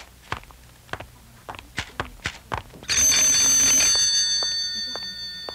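A few scattered light clicks, then about three seconds in a desk telephone's bell starts ringing loudly with a fast metallic trill, breaking off near the end.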